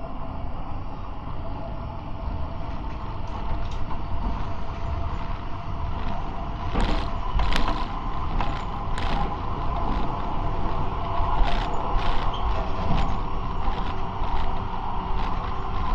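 Prague tram running along the track, heard from on board: a steady low rumble with a steady tone that grows louder about six seconds in. Sharp clicks and creaks from the wheels and car body come through repeatedly, most of them in the second half.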